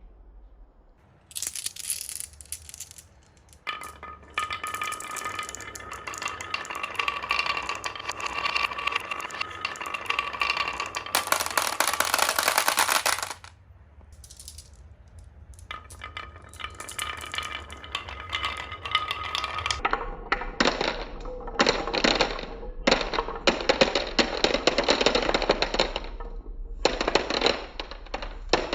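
Marbles rolling and clattering down a marble run, a dense stream of clicks and rattles in several long runs with a short lull a little before the middle.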